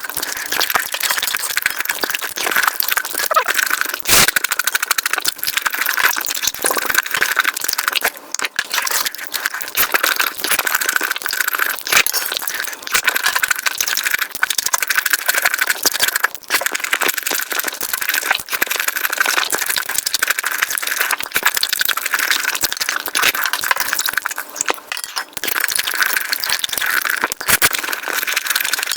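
Close-miked mukbang eating sounds played back sped up: a dense, unbroken run of quick chewing clicks and crackles.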